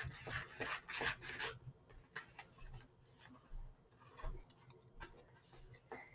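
Paper strips being folded and creased by hand: faint crinkling and rustling, thickest in the first second and a half, then only the odd crackle.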